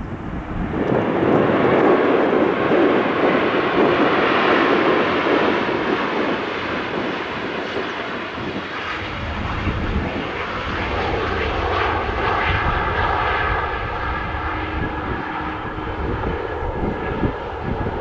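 Airliner engines running loud as a plane passes. The noise swells in the first two seconds, turns to a deeper rumble about halfway through, and carries steady whining tones a few seconds later.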